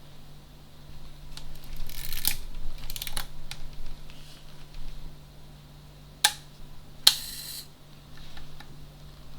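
Mechanical clicks and handling noise from a 1958 Olympus Ace rangefinder film camera. A stretch of rustling and small clicks comes about two seconds in, then a sharp click about six seconds in and a louder click with a short rasp about a second later.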